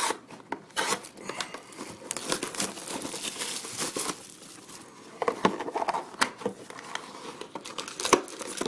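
Plastic wrapping crinkling and tearing as a sealed box of hockey trading cards is unwrapped and opened, with sharp crackles and clicks throughout.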